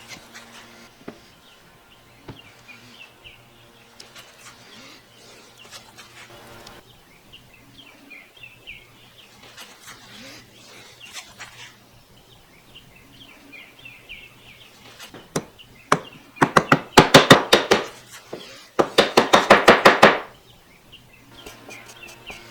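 Two bursts of rapid scraping or rasping strokes on walnut, each about a second and a half long, near the end. Before them the wood is worked only faintly, with light scratches and taps.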